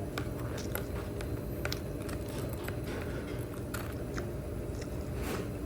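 Close-up eating sounds from a boxed lunch of pork cutlet and spicy pork: scattered small clicks and crunches of biting and chewing, over a steady low background hum.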